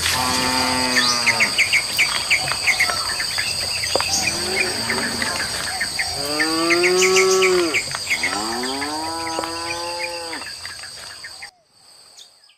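Cattle mooing, several long low calls that sag in pitch at their ends, the loudest a little past the middle, over rapid bird chirping and a steady high insect drone. The sound cuts off near the end.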